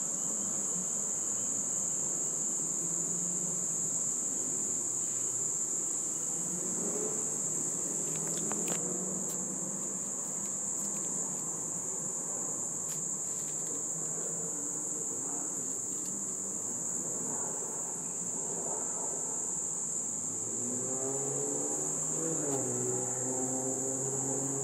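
Steady high-pitched insect chorus that goes on unbroken without a pause.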